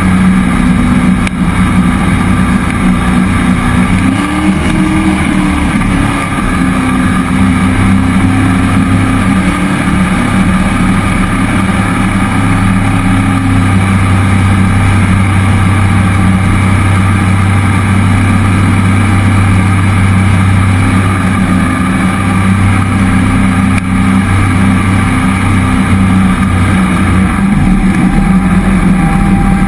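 Cammed 5.3-litre LS V8 driving a Berkeley jet pump on a jet boat, running under way at a steady cruise, with a brief rise and fall in engine pitch about four seconds in.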